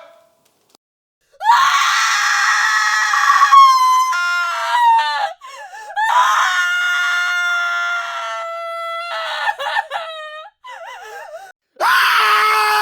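A woman screaming, several separate screams: a long high scream that falls away, a second long scream held at one pitch, quieter wavering cries, then a short loud scream near the end.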